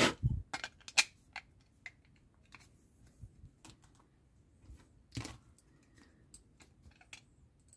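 Scattered small clicks and taps of hands handling a small screwdriver and parts on a tabletop, loudest in the first second, with another louder tap about five seconds in.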